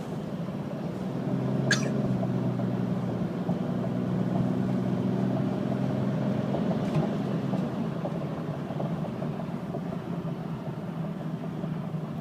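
2013 Ram 2500's Cummins inline-six turbodiesel pulling under acceleration, heard from inside the cab: the engine drone grows louder about a second in, holds steady, then eases off around eight seconds in. A brief click near two seconds in.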